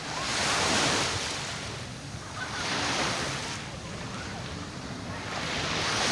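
Sea surf breaking and washing on the shore, swelling three times in slow surges, with some wind on the microphone.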